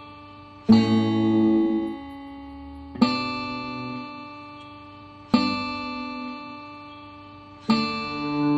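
Guitar ensemble of nylon-string classical guitars and an electric guitar playing a slow I–V–vi–IV chord progression in D major. Four chords are strummed, one about every two and a half seconds, and each is left to ring and fade.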